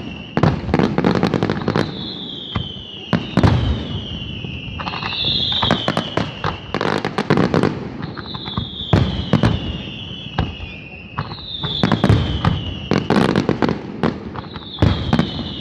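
Fireworks display: aerial shells bursting one after another in a dense run of loud bangs and crackles. A high whistle that falls slightly in pitch comes back every three to four seconds.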